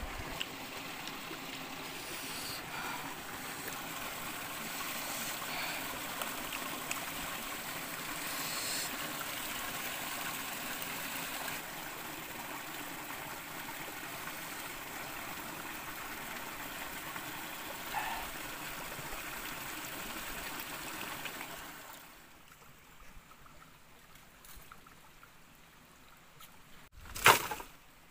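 Steady rush of flowing stream water, which drops away sharply about three-quarters of the way through, leaving faint rustling. A single loud, sharp crack comes about a second before the end.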